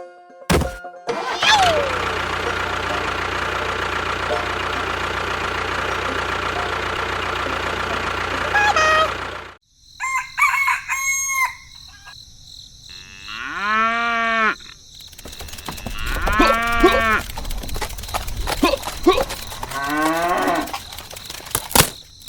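A steady, noisy machine-like sound for about eight seconds that cuts off suddenly, followed by several separate animal calls that rise and fall in pitch.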